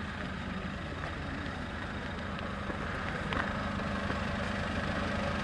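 An engine running steadily at idle, a low even hum.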